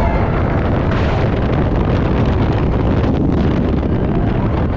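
Heavy wind rush buffeting the on-ride microphone over the rumble of a B&M dive coaster train racing down its 205-foot vertical first drop, a dense, loud noise throughout.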